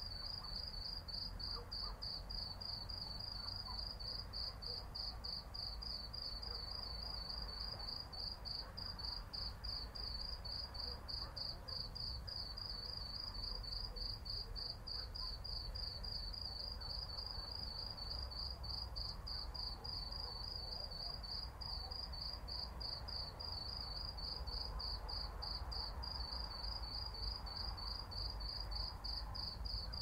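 A night insect chirping on one high pitch in a steady run of evenly spaced pulses, over a faint low rumble.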